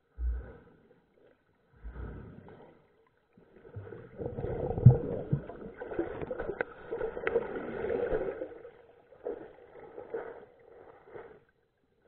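Heard through an underwater camera in a shallow stream: a hand stirring the water and streambed right by the camera, with muffled sloshing and bubbling, a few low thumps and sharp clicks. It is busiest from about four to eight seconds in, then trails off into short bursts.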